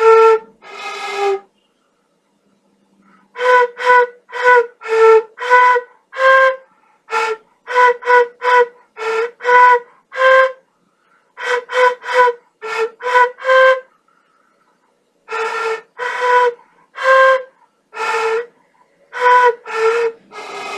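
Quena, the Andean notched flute, playing a carol melody solo in short separate notes with an airy edge, grouped into phrases with brief pauses between them.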